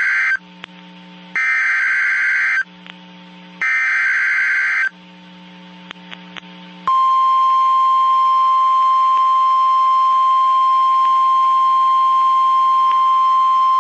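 Emergency Alert System on NOAA Weather Radio: the SAME header data bursts, three harsh screeches about a second long each, the first already under way. About seven seconds in, the steady 1050 Hz weather radio warning alarm tone starts and holds. The sequence signals that a new warning is about to be broadcast.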